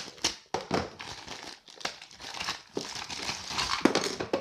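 Clear plastic packaging bag crinkling and rustling in the hands as a toy car is pulled out of it.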